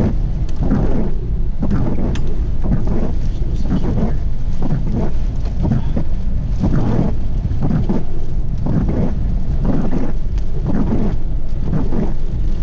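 Strong storm wind buffeting the microphone in irregular gusts over a steady low rumble, the wind of a large tornado passing close by.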